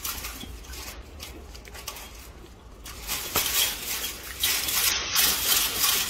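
Macaques scuffling and grabbing at a chain-link fence: a noisy, rustling and rattling commotion that grows louder about three seconds in.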